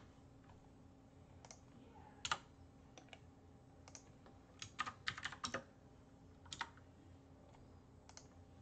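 Scattered, irregular keystrokes on a computer keyboard, with a quick run of taps about five seconds in, over a faint steady hum.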